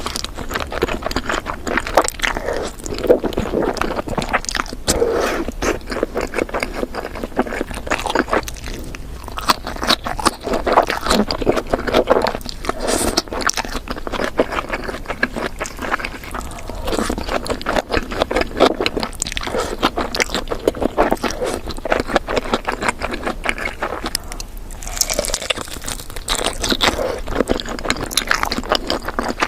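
Close-miked eating sounds: continual chewing and crunching with dense, crisp crackles from bites of fried chicken.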